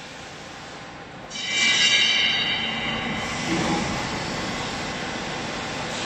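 Steel vertical baler giving a high metallic screech for about two seconds, then a low clunk, over a steady machine hum.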